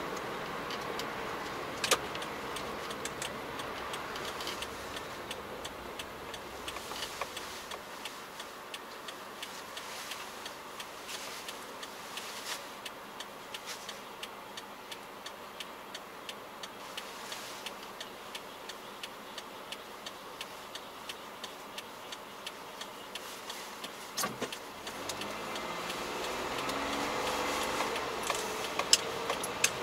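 Car interior noise as the car slows and waits, with a turn-signal indicator ticking steadily throughout the wait. The engine and road noise pick up again near the end as the car pulls away.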